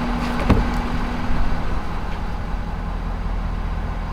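Ford Super Duty pickup's engine idling steadily, with a sharp click about half a second in.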